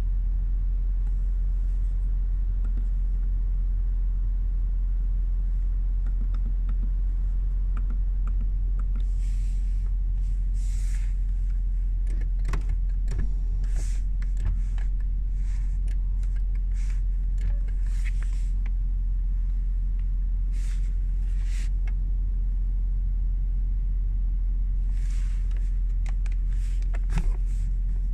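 Electric seat-adjustment motors of a Mercedes-Benz S-Class (W221) whirring in short runs as the door-mounted seat switches are pressed, with switch clicks between them. A steady low cabin rumble runs underneath.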